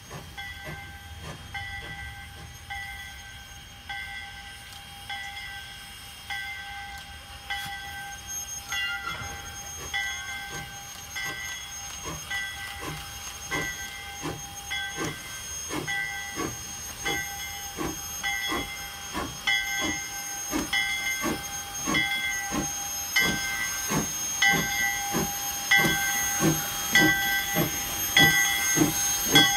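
Jeddo Coal No. 85, a small 0-4-0T steam tank locomotive, working slowly with even exhaust chuffs that grow louder as it approaches and passes close by. A bell rings steadily in time throughout.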